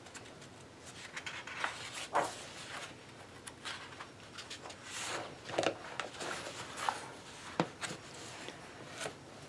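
Paper rustling and soft handling knocks as pages of a large paperback coloring book are turned and the book is shifted round on a table, in short irregular bursts.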